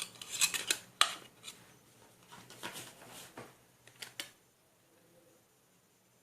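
Light clicks, taps and short scrapes of small hard parts being handled and fitted together, a dozen or so irregular strokes, stopping about four seconds in.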